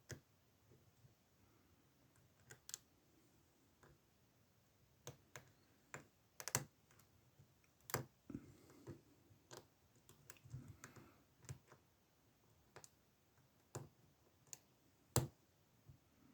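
Faint, irregular metallic clicks and ticks of a lock pick and tension wrench working the pins inside a CISA 30 mm padlock, with a soft rustling in the middle stretch and the sharpest click near the end.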